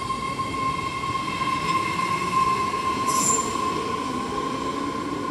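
New BART train pulling out of the station with a steady high-pitched whine over a rumble of wheels on rail. A brief high hiss comes about three seconds in.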